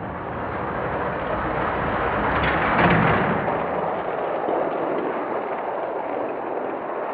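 1:64 die-cast cars rolling down an orange plastic Hot Wheels track, a rushing rumble that builds to its loudest about three seconds in and then carries on steadily.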